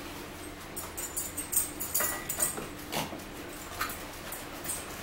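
Paper wrappers and cardboard sandwich boxes being handled and opened, with scattered crinkles, crackles and light taps, busiest between one and three seconds in.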